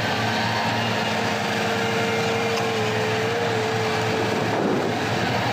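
Komatsu crawler excavators running under load while digging mud, a steady diesel drone with a thin whine held over it through the middle.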